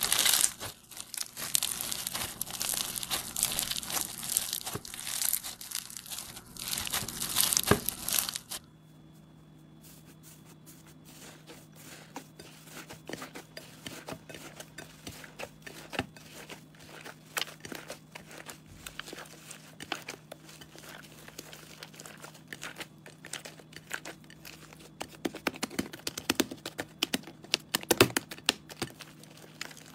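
Hands squeezing floam slime packed with small foam beads, which crunches and crackles densely as the beads press together. After about eight and a half seconds it cuts to green slime being kneaded by hand, much quieter, with scattered sticky clicks and pops and a sharper pop near the end.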